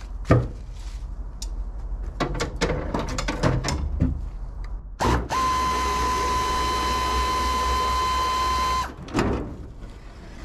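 Scattered clicks and metal knocks, then a power drill-driver runs at one steady pitch for about three and a half seconds and stops suddenly, unbolting a car's trunk latch.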